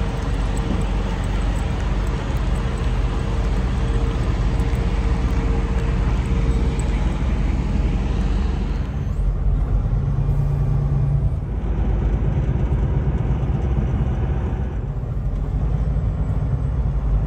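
Steady outdoor vehicle noise at a truck stop: trucks and traffic running, with a faint steady tone that fades out about seven seconds in. About nine seconds in, the sound changes to the inside of a semi-truck cab: the truck's diesel engine running with a low, steady hum, and the higher sounds muffled.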